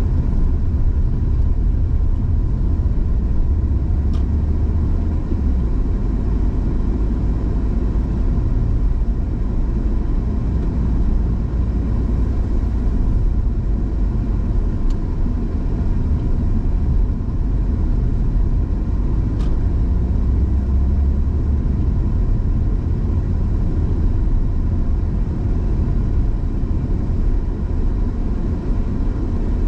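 Car driving at steady speed: a continuous low rumble of engine and road noise with no change in pace.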